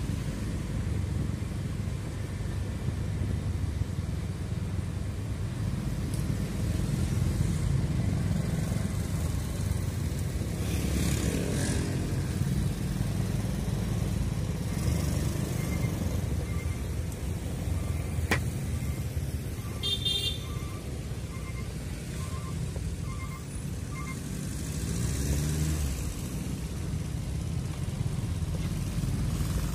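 Vehicle engine and road noise: a steady low rumble while driving along a narrow road. Between about 16 and 24 seconds a run of short, evenly spaced high beeps sounds over it.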